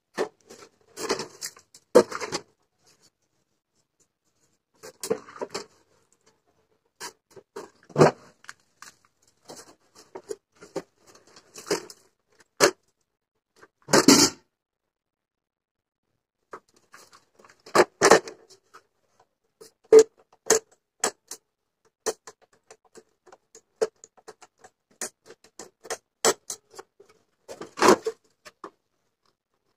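Handling noise from an old metal-cased stereo cassette player being lifted and turned over: scattered short clicks and knocks, with a few longer scraping, rattling clusters in between.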